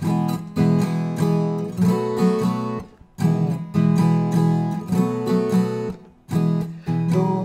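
Viola caipira strummed in a cururu accompaniment rhythm, steady chord strokes broken by two short pauses about three and six seconds in.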